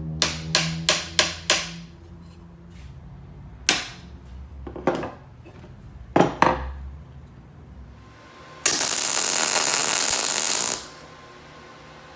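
Hammer striking steel: five quick ringing blows, then four more spaced strikes, over a low steady hum. Near the end comes a loud even hiss of about two seconds that starts and cuts off abruptly.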